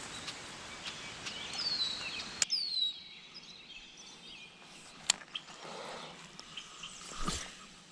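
Birds calling: short whistled calls that fall in pitch, over a steady outdoor hiss. A few sharp clicks and a thump near the end.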